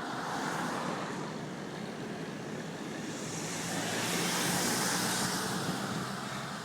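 A car coming up from behind and passing, its tyre and engine noise swelling to a peak about four to five seconds in, then fading.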